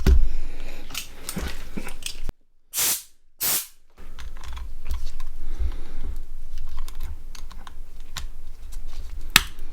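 Small plastic clicks and taps from handling a Nokia 6680 mobile phone's plastic body shell, with a sharper click near the end.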